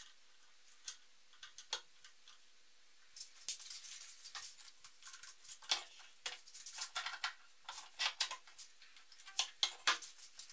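Light handling noises of metal grinder parts: a few separate clicks and taps, then from about three seconds in a busier run of small clicks, clinks and short rubbing sounds, as a bearing-mounted polyurethane wheel is fitted onto a steel post and an abrasive belt is fitted around it.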